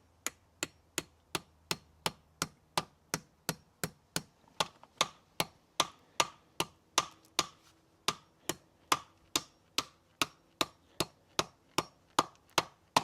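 Steady, evenly spaced clock-like ticking, sharp ticks about three and a half a second, keeping the same pace throughout.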